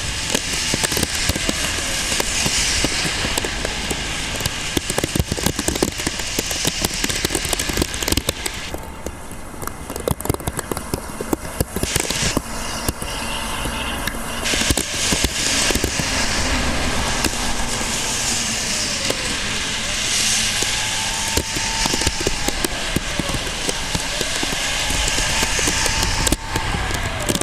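Typhoon wind and rain buffeting the microphone: a loud, dense crackling noise full of knocks. Faint rising-and-falling tones come through in the second half.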